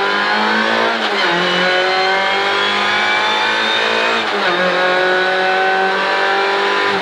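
Rally car's engine at full throttle, heard from inside the cockpit, its pitch climbing as it accelerates, with two quick drops in pitch at upshifts about a second in and about four and a half seconds in.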